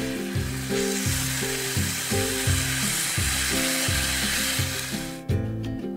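Bulgogi with oyster mushrooms and sliced green chili sizzling as it is stir-fried in a pan and stirred with wooden chopsticks, over soft background music. The sizzle is strongest from about a second in and stops about five seconds in, giving way to a few short scraping strokes near the end.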